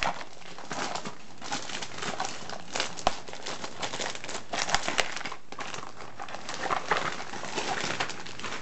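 Plastic and cardboard toy packaging crinkling and rustling as it is opened by hand, with scattered sharp crackles and clicks.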